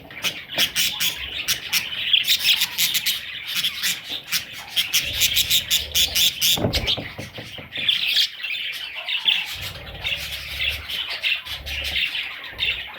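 Several budgerigars chattering and chirping continuously, a dense warble of quick, sharp chirps and clicks.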